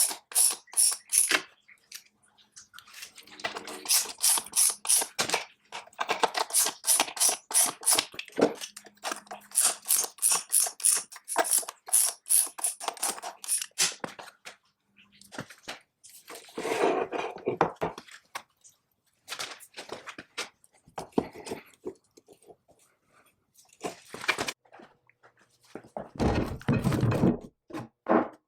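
Hand tool work on the metal parts of an antique power hammer during disassembly: runs of quick, evenly paced scraping or ratcheting strokes, about three or four a second. These give way to scattered knocks and a heavier thunk near the end.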